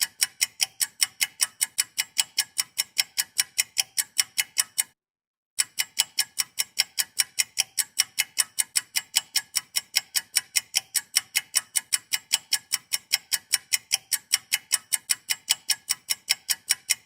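Ticking clock sound effect, about four crisp, even ticks a second, cut by a half-second gap of dead silence about five seconds in.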